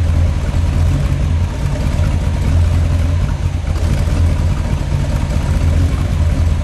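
The 1970 Iso Grifo 7 Litri's Chevrolet 427 big-block V8 idling steadily through its exhaust, a deep, even rumble.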